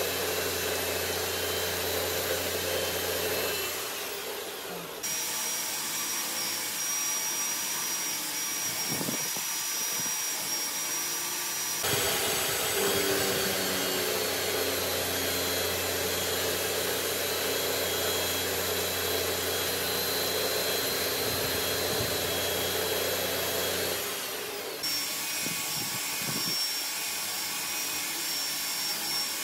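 Machine tool running steadily while a fluted milling cutter cuts spiral flutes into a steel workpiece: a constant motor hum and whine with cutting noise, its character changing abruptly a few times.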